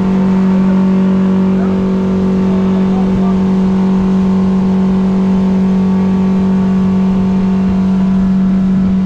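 Boat engine running at a steady speed: a constant droning hum that does not change in pitch.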